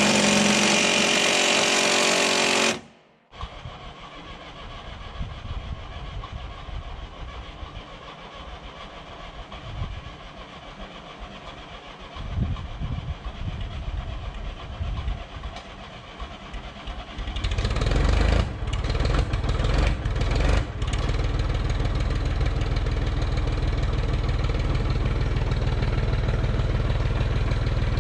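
Small gasoline engine driving a firewood conveyor, running unevenly at first. It grows louder about two-thirds of the way in, with a few brief dips, then settles into a steady run. In the opening seconds a loud steady noise cuts off abruptly.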